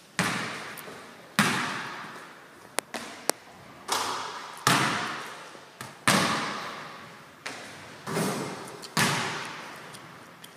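Basketballs bouncing on a hardwood gym floor during dribbling drills, about nine loud bounces at uneven intervals, each echoing around the empty hall.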